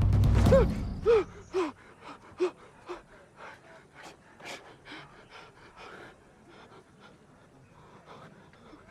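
A loud low rumble cuts off about a second in, then a person gasps and pants in short breaths that grow fainter over the next few seconds.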